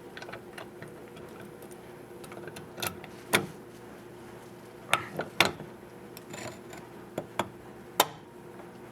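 Irregular sharp clicks and knocks, some in quick pairs, from fire alarm equipment being handled and operated, over a faint steady hum.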